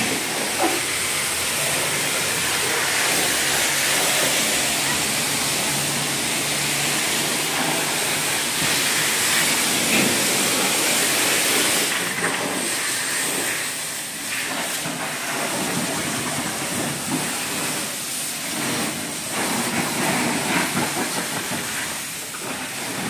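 A steady, loud hiss fills the car wash, with the scrubbing of a wash mitt over foam-covered car paint. The hiss eases a little about twelve seconds in.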